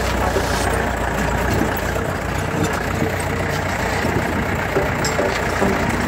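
Jeep engine running as the vehicle drives over a rough dirt track, with occasional short knocks and rattles.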